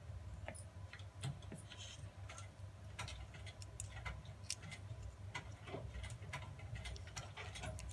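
Faint, irregular small clicks and taps from handling a mobile phone's circuit board while a copper wire is soldered onto it, over a low steady hum.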